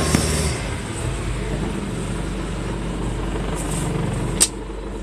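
Motorboat engine running steadily under way, with a haze of water and wind noise. A single sharp knock about four and a half seconds in, after which the sound is a little more muffled.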